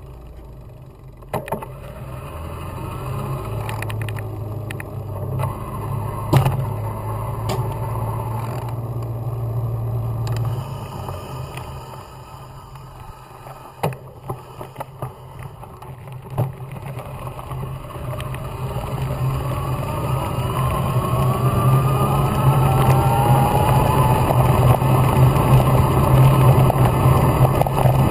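Riding noise of an electric mountain bike picked up by a handlebar-mounted camera: a steady low rumble of tyres rolling and wind, broken by sharp knocks and rattles as the bike hits bumps. It grows louder in the second half on the gravel track, where a whine rising in pitch also comes in.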